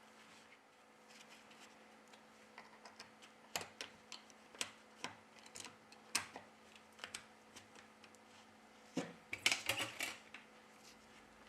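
Scattered small clicks and taps of hand tools and smartphone parts being handled during reassembly, with a denser run of louder clicks about nine seconds in.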